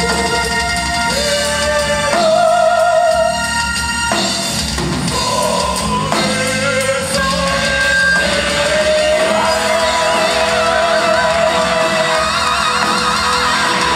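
Metal band playing live, heard from the crowd: bass, keyboards and drums under a singer holding long notes with a wavering vibrato.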